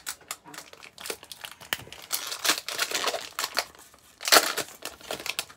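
Foil Pokémon booster pack wrapper being torn open and crinkled by hand, an irregular run of crackles with a louder burst about four seconds in.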